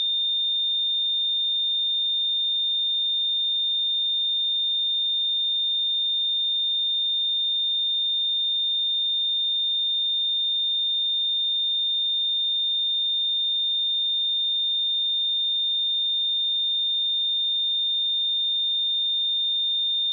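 A steady pure 3626 Hz sine-wave test tone, one unwavering high-pitched note at constant loudness.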